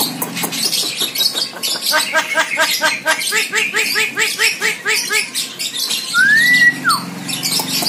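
Javan myna calling: clicking chatter, then about two seconds in a fast run of repeated harsh notes, about four or five a second, for some three seconds, and a single whistle that rises and falls near the end.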